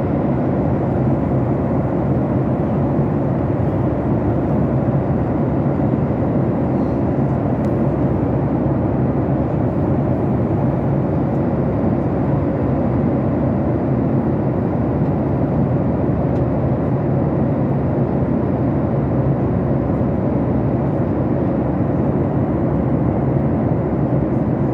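Steady roar of a passenger aircraft cabin in flight, engine and airflow noise with a low hum underneath.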